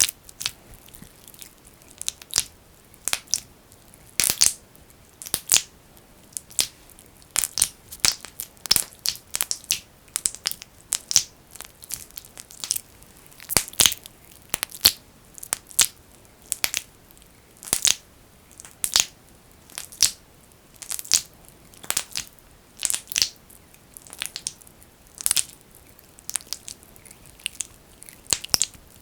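Thick, sticky Vaseline (petroleum jelly) being rubbed and squeezed by fingers close to the microphone. It makes short, irregular crackling, squelching bursts, about one or two a second, mostly high-pitched.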